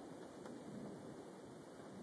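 Faint, steady hiss of rain falling during a thunderstorm, with one faint tick about half a second in.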